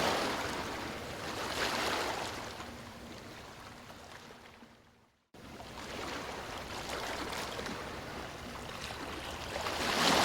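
Ocean waves washing onto a beach in slow surges that rise and fall. About five seconds in, the sound fades out to near silence and then cuts back in abruptly, like an edit join, with another wave surging near the end.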